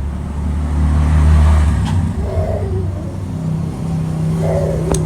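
A motor vehicle engine running close by, a low steady hum that grows louder about a second in and then eases off.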